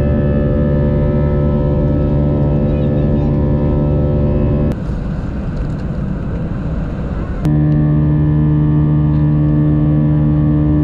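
Jet airliner engines droning, heard from inside the cabin during the climb after takeoff: a steady hum with several held tones over a low rumble. From about five to seven and a half seconds in it gives way to a quieter, rougher cabin rush, then the toned drone returns.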